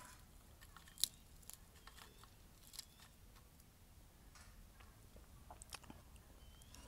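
Faint, scattered crisp clicks and crackles, the sharpest about a second in, as fingers break up crispy fried dried fish and press it together with rice on a plate.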